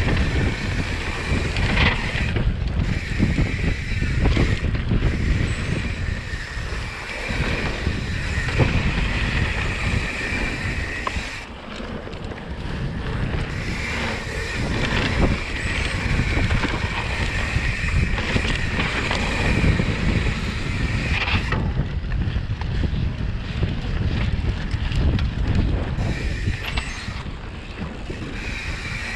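Wind buffeting the camera microphone on a mountain bike riding fast along a dirt trail, with the tyres rolling over dirt and the bike rattling and knocking over bumps.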